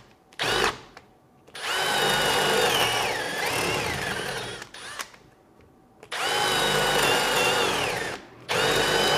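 Cordless drill boring into wood with a spade bit, run in bursts: a brief blip, two long runs and a shorter one near the end. The motor whine dips in pitch as the bit bites and rises again.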